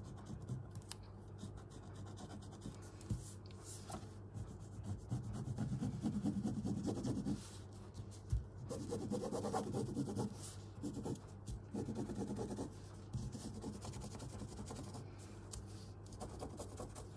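A pen rubbing and scratching on fabric in short, irregular strokes, tracing around a template.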